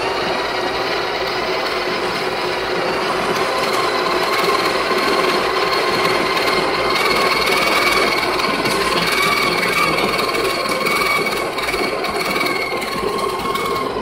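Breville espresso machine's built-in burr grinder running steadily as it grinds beans into the portafilter, a machine whine with a couple of steady tones. The grinder was started by pushing the portafilter against its button, and it stops near the end after dosing automatically for a double shot.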